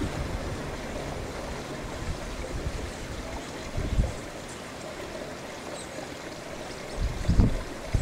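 Steady outdoor rushing noise, with low buffeting of wind on the microphone about four seconds in and again near the end.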